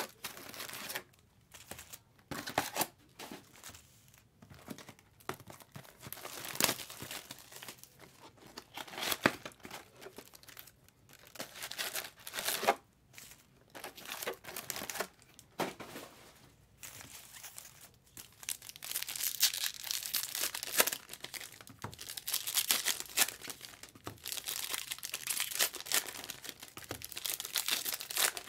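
Plastic trading-card wrapping being torn open and crinkled by hand, in irregular rustling bursts that turn into denser, more continuous crinkling about two-thirds of the way in.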